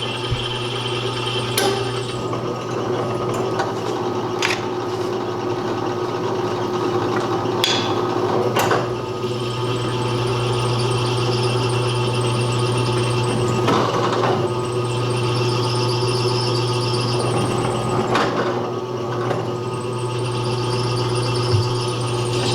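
Electric drill running steadily under load, a dull bit grinding its way through a broken steel bolt and making a lot of friction, with a wavering high whine and a few sharp scrapes and clicks along the way.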